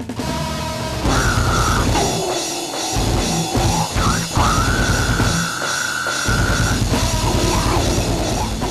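Rock music with a driving drum kit and a sustained sung or lead-guitar line, playing as the video's closing soundtrack.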